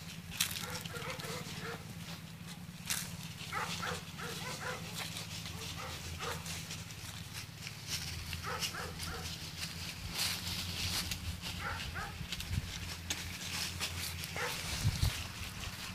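A dog barking in short bouts every few seconds, with crackling of dry leaves and a steady low hum underneath.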